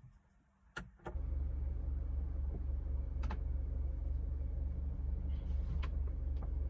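A single click, then from about a second in a car engine running with a steady low rumble.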